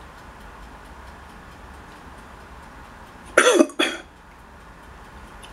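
A person coughs, two short bursts about three and a half seconds in, over a steady low hiss.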